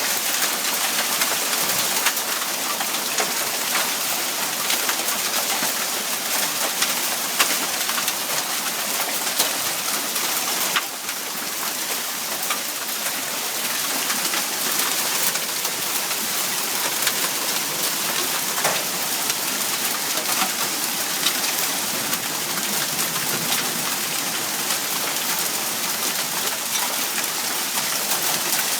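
Hail and heavy rain pelting down: a dense, steady hiss dotted with many sharp ticks of stones striking hard surfaces.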